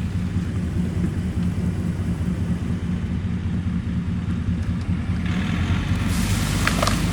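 Tractor engine running steadily with an even low hum. About five seconds in a hiss rises over it, with a few brief high squeaks near the end.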